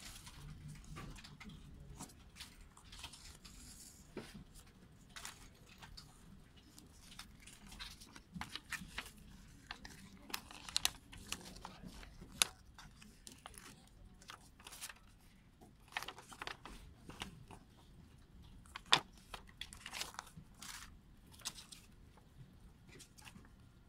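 Rustling and crinkling of a CD's plastic inner sleeve, a cardboard mini-LP jacket and a paper booklet being handled, with scattered light taps and a few sharper clicks.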